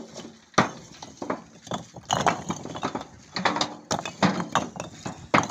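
Fired clay bricks being thrown by hand onto a pile in a tractor trailer, knocking and clinking against each other in irregular sharp knocks, several a second.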